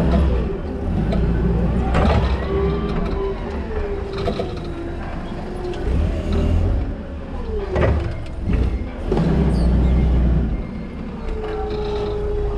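Toyota counterbalance forklift running, heard from the operator's seat: a low drone with a whine that rises and falls as the truck manoeuvres and works its hydraulics, and a few knocks. Near the end the whine holds steady while the forks take up a pallet load.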